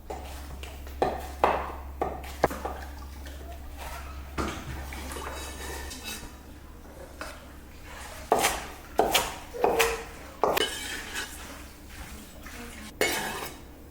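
Dishes and metal utensils clinking and clattering in a kitchen: about ten separate sharp knocks, busiest in the second half. A low steady hum runs under the first half.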